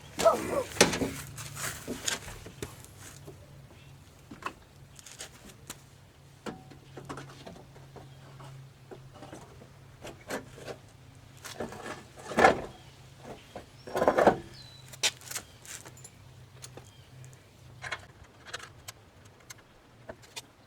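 Scattered clinks, knocks and rattles of hand work on a car door and its parts, with louder knocks just after the start and twice more about two-thirds of the way through, over a steady low hum.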